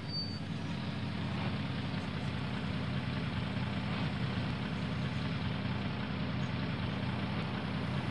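Pickup truck engine running, heard from inside the cab as a steady low drone.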